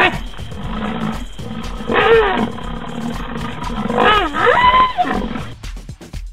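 Large wild animal calls: two long, deep calls about two and four seconds in, each bending up and down in pitch, ending shortly before the end. Background music with a steady beat runs underneath.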